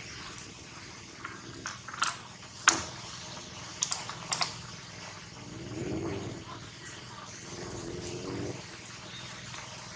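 Inflated rubber balloon handled by a monkey: a handful of short sharp squeaks and taps in the first half, the loudest a little under three seconds in. A low hum swells and fades twice in the second half over steady outdoor background noise.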